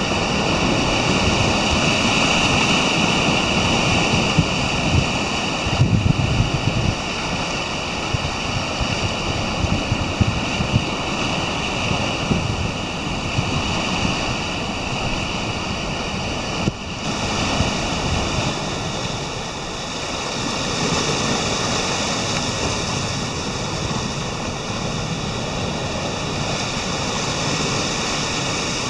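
Atlantic surf washing and breaking over seaweed-covered rock ledges, a steady churning rush of water, with wind rumbling on the microphone.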